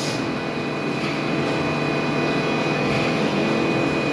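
Tsugami Mori BS18 III automatic lathe running: a steady mechanical drone with a thin, constant high whine.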